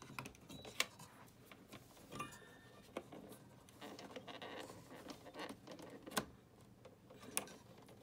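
Faint plastic clicks and cable rustling as a SATA power connector is wiggled and pulled off a DVD drive inside a desktop computer case, with a few sharp clicks along the way.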